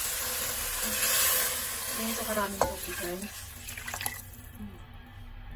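Water pouring into a cooking pot with a steady hiss that stops about four seconds in, followed by a light clink of a utensil.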